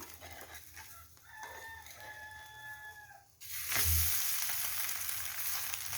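A long, held call sounds faintly in the background for nearly two seconds. About three and a half seconds in, the bread omelette is turned over onto the oiled pan: a soft thump, then a sudden loud sizzling that keeps frying steadily.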